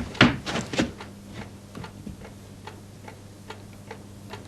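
A clock ticking steadily, about three ticks a second, with a few louder clicks in the first second and a low steady hum underneath.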